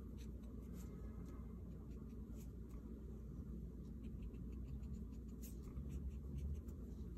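Faint, scratchy strokes of a small paintbrush on watercolour paper, over a low steady hum.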